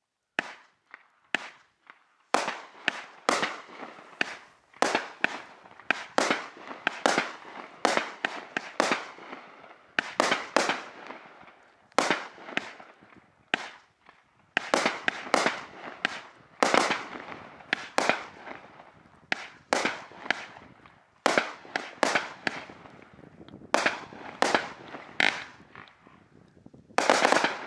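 Raccoon Fireworks 'Dreams from Heaven' 25-shot, 200 g consumer cake firing: a string of sharp shots and bursts, about one a second and sometimes in quick pairs, each trailing off in a short hiss. Near the end a louder, denser burst begins as the finale goes off.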